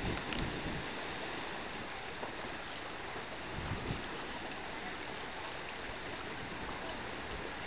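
Steady rush and splash of water from Cliff Geyser erupting beside a flowing creek.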